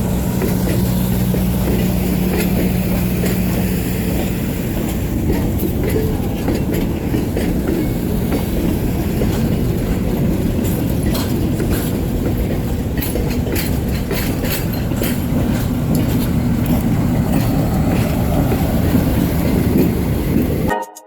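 Train rolling past close by: a loud, steady rumble from the wheels and cars, with a steady engine tone for the first few seconds and then repeated clicks from the wheels crossing rail joints. The sound cuts off suddenly at the end.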